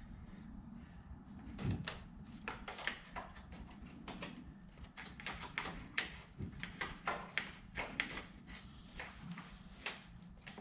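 Flowrite remote drain plug cable being worked by hand through the boat's rear drain opening: irregular light clicks, taps and scrapes, over a low steady hum.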